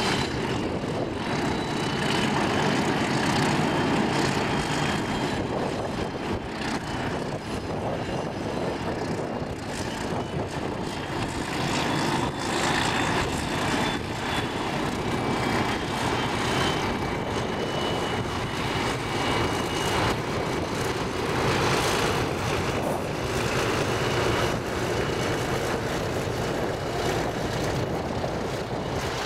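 Two Alco diesel locomotives working a passenger train across a viaduct: a steady, loud diesel engine drone mixed with the clicking and clatter of wheels on the rails.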